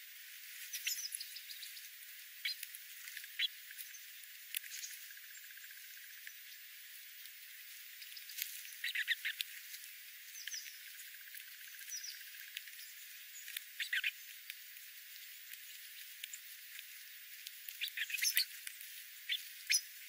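A flock of sparrows and other small songbirds feeding on seed gives short, high chirps and call notes in scattered clusters, busiest around nine seconds in, at fourteen seconds and near the end, over a steady hiss.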